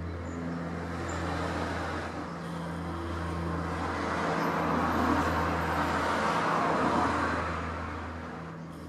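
Antonov An-24's twin turboprop engines passing overhead: a steady low propeller hum under a rushing sound that swells to its loudest about five to seven seconds in, then fades.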